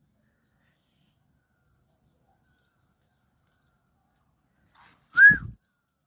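Near silence, then about five seconds in a single short whistled note that rises and falls, with a low thump under it.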